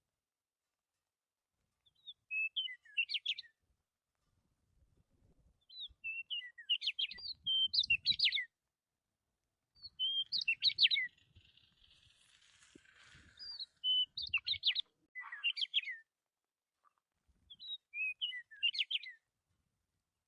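A songbird singing in five short phrases of quick, high chirps and trills, each a second or two long and a few seconds apart.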